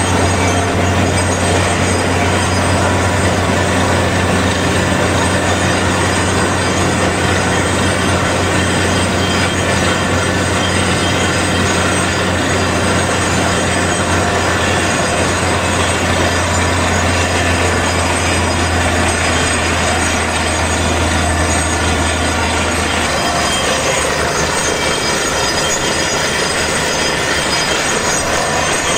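Borewell drilling rig running while drilling: a loud, steady mechanical din with many high whining tones over a low drone. The low drone drops away about 23 seconds in while the rest of the machine noise carries on.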